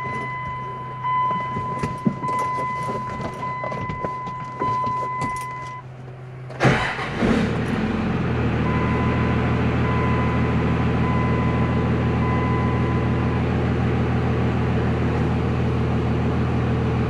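A truck's dash chime beeps repeatedly. About six and a half seconds in, the Cummins diesel engine starts with a sudden burst and then idles steadily while the chime beeps again for a few seconds.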